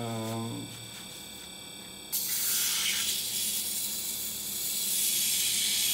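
Edge of an old steel saw blade scraping across a spinning copper lap, a steady hiss that starts suddenly about two seconds in, as the blade skims the lap's top layer and lifts copper off it.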